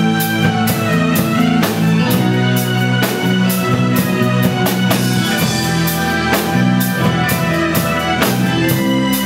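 Indie rock band playing live: a drum kit keeps a steady beat under sustained bass and guitar chords.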